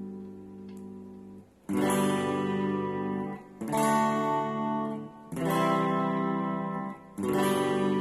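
Ibanez RG350EXZ electric guitar played through an amplifier, strumming chords. One chord rings and fades, then four new chords are struck about every two seconds, each cut short just before the next.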